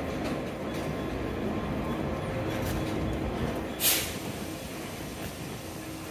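Train running through a station: a steady rumble with a faint hum, and a short hiss about four seconds in.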